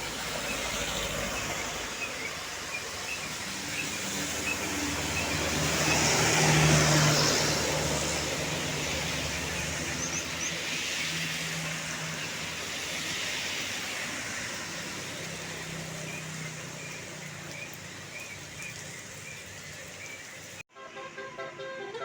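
A heavy vehicle passes: engine hum and road noise swell to a peak about six to seven seconds in, then slowly fade. Near the end the sound cuts off abruptly and a run of pitched tones begins.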